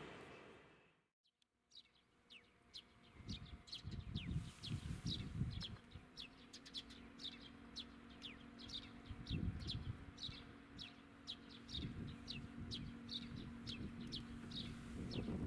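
Small birds chirping: many short, quick, downward-sliding chirps, several a second, starting about two seconds in. Just before them, the tail of a passing train fades out and cuts off.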